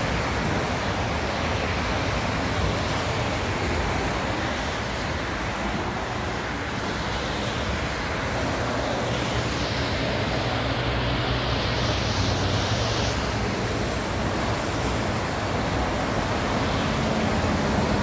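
Steady wash of highway traffic on wet pavement, with rain. Near the end the rising whine of an approaching BART train begins to come in.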